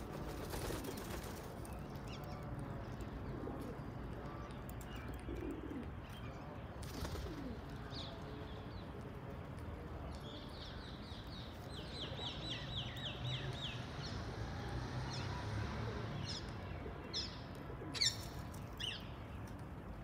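Wild birds calling: low, steady cooing of doves, a quick run of short descending chirps about ten seconds in, and a few sharp chirps near the end. A brief flutter of wings comes about a second in.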